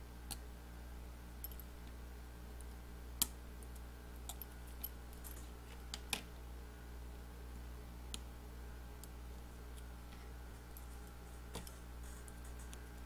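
Sparse small clicks and taps from handling an iPhone 6 and a precision screwdriver during disassembly: seven or eight sharp ticks spread unevenly, the sharpest about three seconds in and about six seconds in, over a steady low hum.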